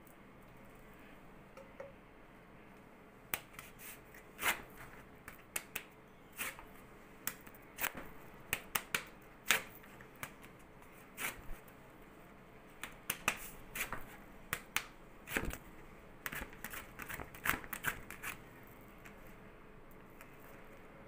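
Irregular short crackling and rustling of a cloth waxing strip being pressed and rubbed down by hand over wax on an arm.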